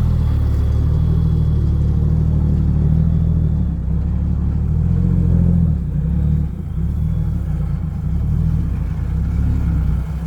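Dump truck's diesel engine running under load as the truck drives off, a steady low drone that shifts pitch and eases a little about halfway through.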